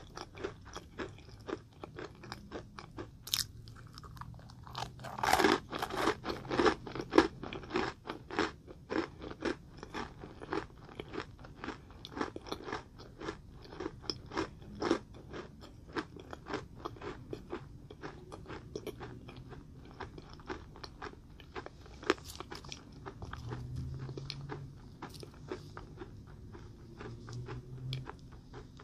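Close-miked eating of a green macaron: crisp crunches of the shell followed by steady chewing, with the loudest run of crunches about five to seven seconds in.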